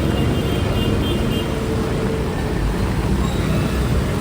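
Steady street noise of traffic running on a wet road, with a continuous hiss spread across the whole range.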